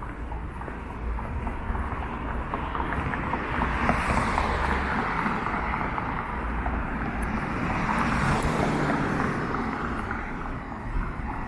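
City traffic passing, with two vehicles swelling past about four and eight seconds in over a steady outdoor rush.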